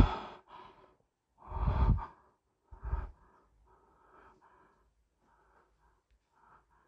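A man's heavy breathing close to the microphone: three loud, rushing exhales in the first three seconds, then softer, quicker breaths.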